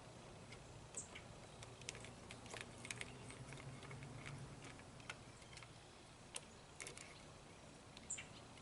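Faint, scattered small clicks and light taps of hand tools and small parts as an outboard carburetor is taken apart, over a faint low hum.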